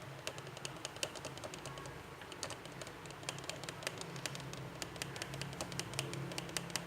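Plastic stirrer clicking and tapping against a plastic tub while slime glue is mixed: quick, irregular light clicks, several a second, over a faint steady low hum.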